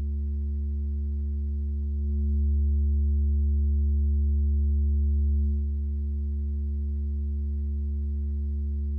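Steady synthesized electronic tone: a low sine-like drone with a stack of held overtones, playing through the Sennheiser Ambeo Orbit spatial panner plugin. It swells slightly louder from about two seconds in and drops back a little after five seconds.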